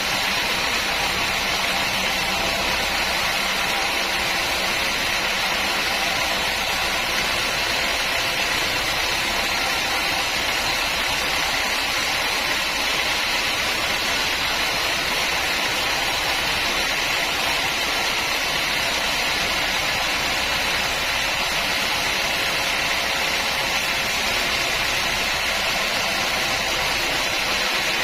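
Sawmill machinery running with a loud, even, unbroken noise.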